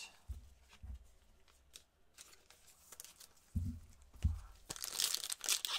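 A few dull thumps of cards and packs being handled on the table. Then, near the end, the crinkling tear of a foil 2019-20 Optic basketball card pack being ripped open.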